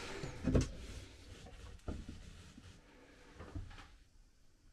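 Varnished wooden galley cupboard doors with finger-hole latches being opened: a knock about half a second in, followed by a few lighter clicks.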